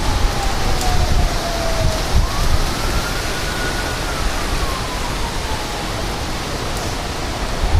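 Severe thunderstorm wind with rain, a steady rushing noise with gusts buffeting the microphone. A faint thin tone slides slowly down in pitch, rises again, then falls.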